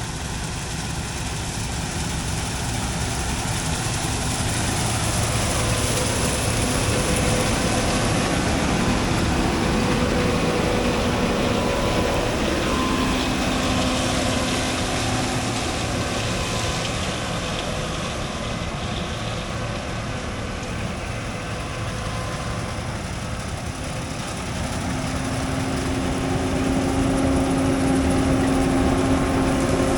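Steady drone of diesel harvest machinery running under load, with a few steady humming tones over a rushing hiss; it swells slightly a few seconds in and again near the end.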